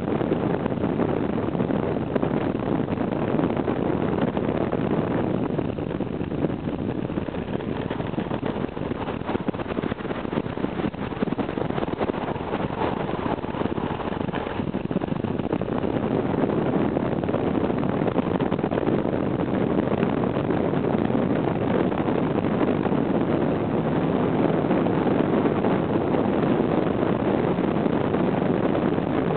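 Steady wind rush and engine and road drone heard from on board a moving vehicle, even and unbroken throughout.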